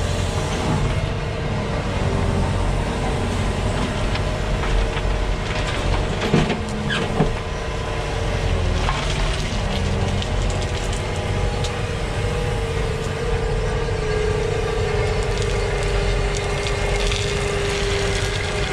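Volvo EWR 150E wheeled excavator's diesel engine running steadily, with a steady whine that drops slightly in pitch near the end. Two short knocks come about six and seven seconds in.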